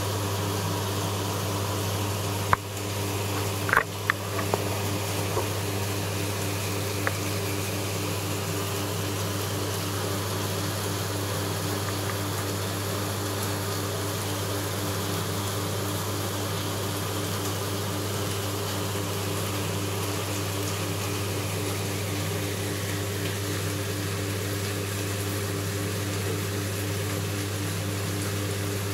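Steady hum and water-flow hiss from the reef aquarium's pumps, unchanging throughout, with a few short clicks between about two and five seconds in.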